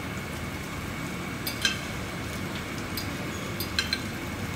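Onions, garlic and green onions sizzling steadily in oil in a frying pan, with several light metallic clinks of tongs against a serving tray.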